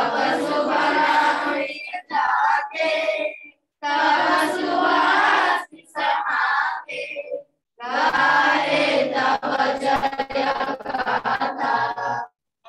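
A group of schoolchildren singing together in chorus, in phrases a few seconds long with short silent gaps between them, heard over a video-call link.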